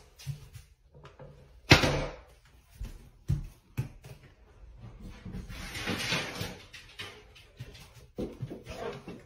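Scattered knocks and bumps, the sharpest about two seconds in, with a stretch of low noise in the middle, in a small tiled room.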